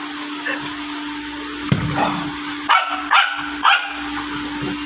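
A dog barking in play with a person: a few short, sharp barks, three of them in quick succession about half a second apart in the second half, over a steady low hum.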